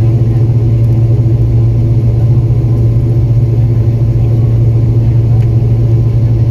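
Airliner cabin noise while the plane taxis: a steady, loud low engine hum with a constant drone, heard from inside the cabin.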